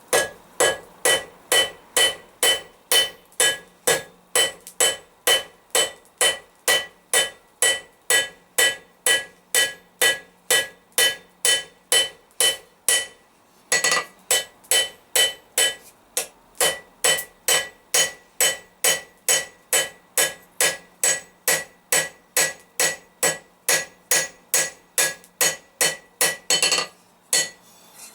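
Blacksmith's hand hammer striking hot steel on an anvil at a steady two to three ringing blows a second, flattening a forged leaf. The hammering stops briefly about halfway through, then resumes.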